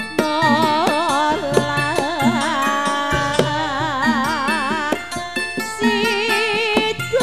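Live Javanese Topeng Ireng dance accompaniment: hand-drum strokes under a sustained melody line with a strong, even vibrato, the melody dropping lower about six seconds in.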